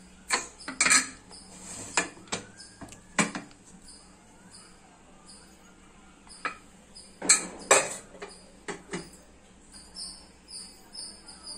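An aluminium pressure cooker being opened after its pressure has died down: metal clinks and knocks as the whistle weight is lifted off and the lid is worked free and taken off, the loudest knocks about seven seconds in.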